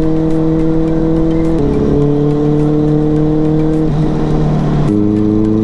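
Kawasaki ZX-10R's inline-four engine running at steady revs while riding, its even note dropping in pitch twice, about a second and a half in and again near the end.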